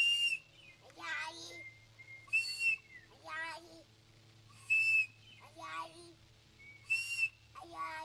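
Whistling, as a person copies a bird: four short, high whistled notes about two seconds apart. Between them a child answers each one with a voiced, wavering imitation.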